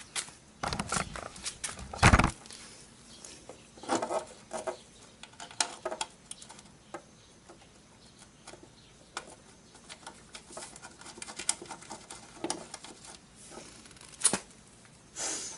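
Scattered clicks, taps and light rattles of metal parts being handled as a motorcycle chain case is fitted and bolted on, with one heavier knock about two seconds in.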